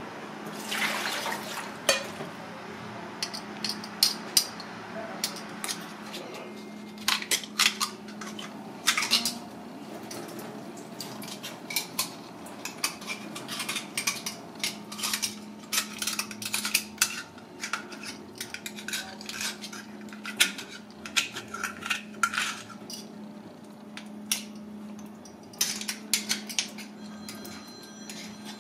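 Giant clam shell clinking and scraping against a stainless steel bowl and sink as it is washed and handled, in many short, irregular knocks over a steady low hum.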